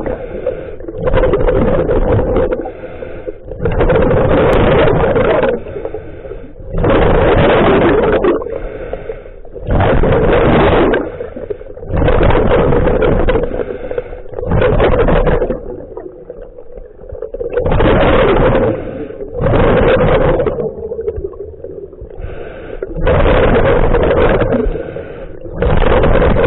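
Scuba diver breathing underwater through a regulator: a loud rush of exhaled bubbles every two to three seconds, with quieter gaps between.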